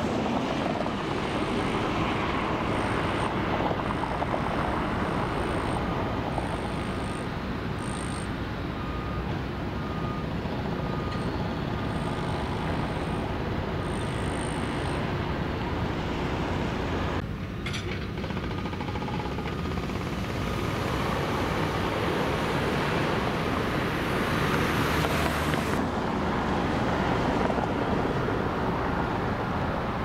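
Steady rumble of construction-site machinery and traffic, with faint on-and-off high whining in the first half and a brief drop in the upper range a little past halfway.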